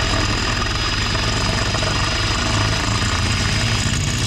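Cordless drill spinning a step bit through the sheet-steel rocker of a pickup truck, running steadily with a constant high motor whine over a fast low chatter as the bit cuts.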